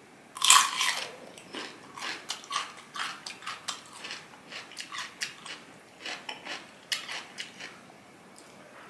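A bite into a crisp unpeeled cucumber stick, loudest about half a second in, followed by crunchy chewing that stops near the end.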